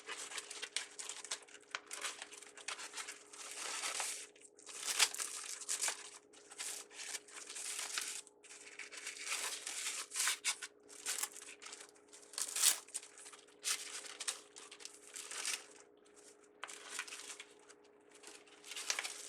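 Craft ribbon crinkling and rustling in irregular bursts, some sharp, as it is handled and shaped into bow loops. A faint steady hum runs underneath.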